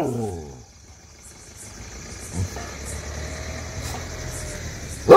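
A dog barking at strangers: one bark dies away at the start and the next begins at the very end. A low steady rumble fills the gap between them.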